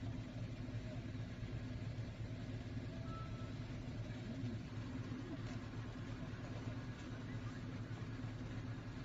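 A steady low engine hum, like a motor idling, with faint voices in the background.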